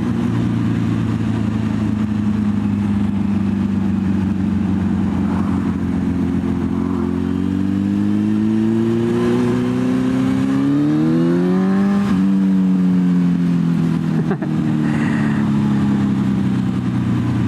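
Honda 919's inline-four motorcycle engine with an aftermarket exhaust, heard from the rider's seat while riding. It runs steadily, then revs up smoothly for about five seconds and drops sharply in pitch with an upshift about twelve seconds in. After the shift it carries on at a steady cruise.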